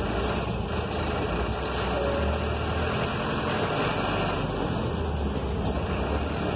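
Mercedes-Benz city bus's diesel engine running with a steady low hum, with road noise from the moving bus, heard from the driver's area inside the bus.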